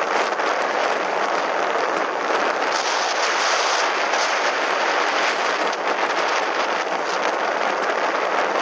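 Steady rushing noise of wind and water from a motorboat under way.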